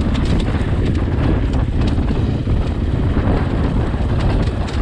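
Dirt bike engine running as it rides downhill off-road, with wind buffeting the helmet camera's microphone and frequent short knocks.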